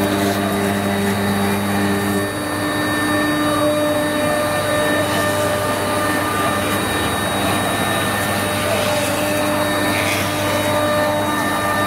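CNC router spindle running at speed while its cutter mills a block of foam: a steady whine of several held tones over a hiss of cutting. Two of the lower tones drop out about two seconds in.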